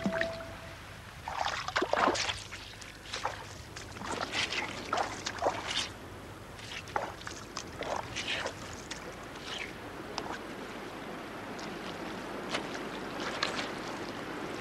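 Footsteps of boots squelching and splashing through soft wet mud and shallow water, in uneven wet steps.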